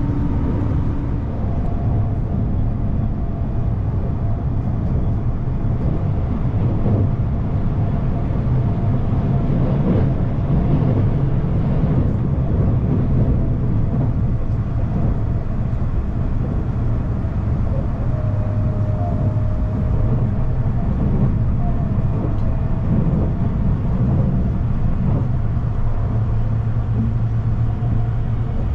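Passenger train in motion: a steady low rumble of running wheels and car, with faint steady tones above it.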